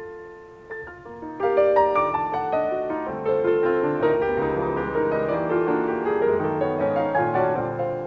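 Jazz piano duo of two acoustic grand pianos playing live, recorded from an FM broadcast onto cassette. A few soft, sparse notes come first, then about a second and a half in the playing turns louder and fuller, with many notes.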